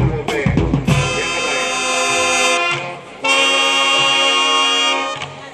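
Marching band's brass playing long held chords, two of them in turn, each cut off cleanly, following a short burst of drums at the start.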